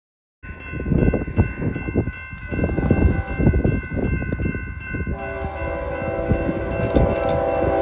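Freight locomotive air horn sounding a steady multi-note chord over the low rumble of the passing train. Lower notes join about five seconds in, and the sound grows louder toward the end.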